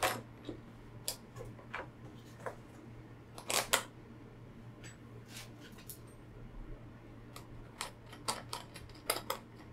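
Scattered small clicks and knocks of plastic and metal as a welding helmet shell, its metal headband bracket and small dome-headed bolts are handled and fitted together. There are two sharper clicks about three and a half seconds in and a quick run of clicks near the end.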